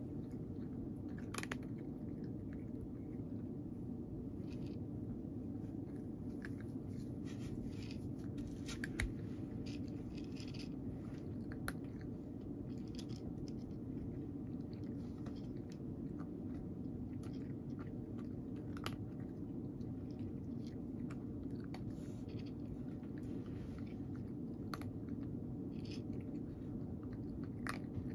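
A domestic cat chewing dry kibble, with irregular crisp crunches coming every second or so over a steady low background hum.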